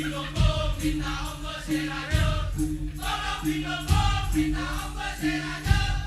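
A Madurese tongtong ensemble playing music. Low drum strikes land about once a second under repeated bass tones, with a wavering melody and voices over them.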